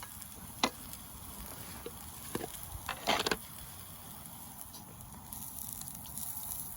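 Campfire crackling in a fire pit: a low steady hiss with a few sharp pops, several close together about three seconds in.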